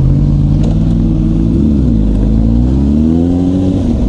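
Motorcycle engine under way, accelerating: its pitch drops about one and a half seconds in, then climbs steadily and drops again near the end, as with gear changes.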